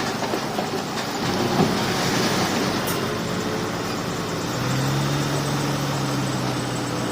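Komatsu crawler bulldozer's diesel engine running under load, with its steel tracks clanking and rattling; the engine note grows stronger about four and a half seconds in.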